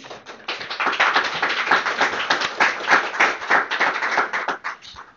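Audience applauding: a dense run of hand claps that builds quickly, then thins out and stops near the end.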